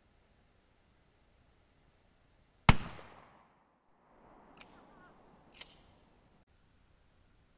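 A single loud gunshot about two and a half seconds in, with a short echo trailing off. Two fainter clicks follow about two and three seconds later over a low rustling.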